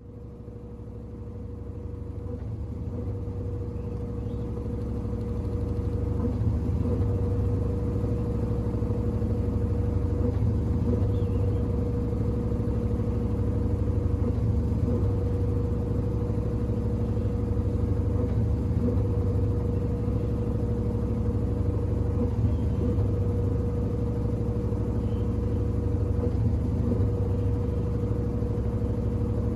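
Washing machine running, growing louder over the first six seconds and then holding steady, with a steady hum over a low rumble.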